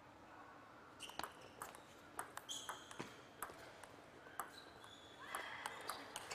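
Table tennis ball clicking sharply off the bats and the table in a rally, the knocks starting about a second in. Short high squeaks of shoes on the court floor come in between.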